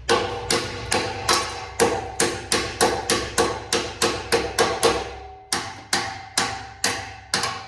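Hammer blows on metal, about three a second in a steady rhythm with a short metallic ring after each strike, chipping at the cut exhaust fitting under a car; the blows stop just before the end.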